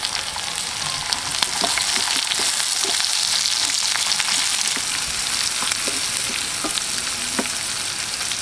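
Garlic and onion sizzling in hot oil in a pan as they are sautéed, with a spatula clicking and scraping against the pan as it stirs.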